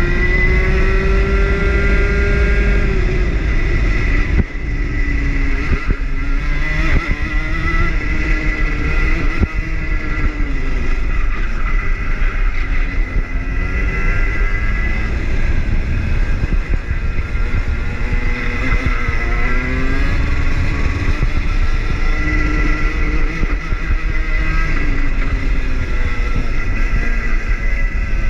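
Rotax two-stroke kart engine at racing speed, its pitch climbing as it revs out and dropping back off the throttle, again and again every few seconds as it laps.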